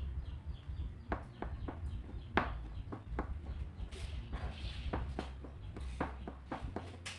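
Kitchen knife chopping red hotdogs into slices on a plastic cutting board: irregular knocks of the blade striking the board, about three a second.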